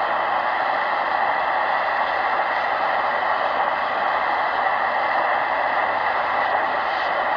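Shortwave static hiss from a Tecsun PL-680 receiver's loudspeaker as it is tuned up through the 31-metre band between stations. It is a steady, even noise with no clear station audio.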